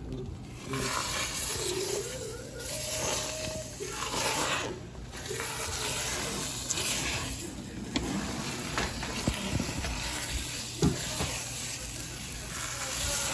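Scrambled egg and diced Spam sizzling in hot oil in a metal pot. The hiss swells and fades as a silicone spatula stirs and scrapes through it, with a few light knocks against the pot.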